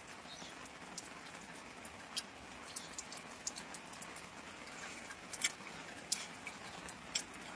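Chopsticks clicking against a bowl during a meal, in scattered light taps at irregular intervals, over a faint steady hiss.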